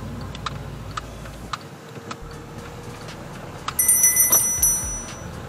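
Car's turn signal ticking about twice a second, then about four seconds in a loud, bright metallic jingle lasting about a second, with low thumps as the car rolls into the plaza entrance.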